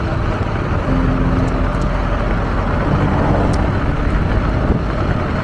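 Steady road noise while riding an electric skateboard: a continuous rolling rumble with street traffic mixed in.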